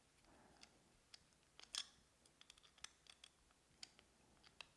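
Faint, scattered small clicks and a brief scrape from tightening the small set screws at the base of a timing-belt pulley on a motorized pan head.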